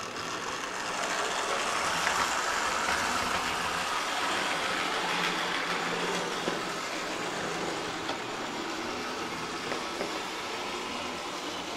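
AHM C-Liner HO-scale model diesel locomotive running on the track at about a third throttle, its motor and gears giving a steady, loud growl. It swells in the first couple of seconds, then eases off slowly as the locomotive pulls away.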